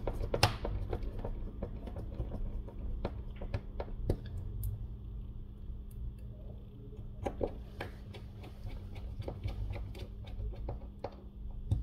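Precision screwdriver clicking and scraping as tiny screws are driven into a phone's plastic midframe, with scattered light ticks and taps from handling the parts.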